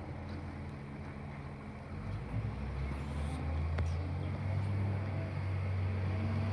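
Garbage truck's diesel engine running low and steady, then revving and getting louder from about two seconds in, with a sharp click near the middle.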